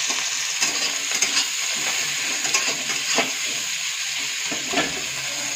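Sliced onions sizzling in hot oil in a metal kadhai, frying until browned, with a steady hiss. A metal spatula scrapes and clinks against the pan several times as the onions are stirred.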